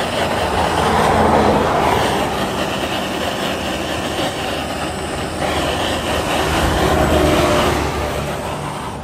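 Handheld butane gas blowtorch flame hissing steadily as it heats the heat-shrink seal on a fiber optic splice closure's cable entry. A steady low rumble runs underneath, and the sound swells about a second in and again around seven seconds in.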